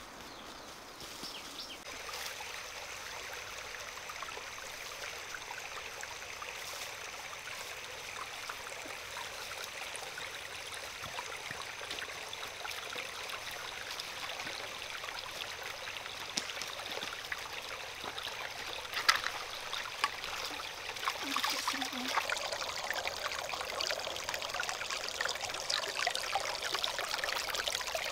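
Water running and trickling steadily, slowly growing louder, with a few small sharp clicks or splashes in the second half.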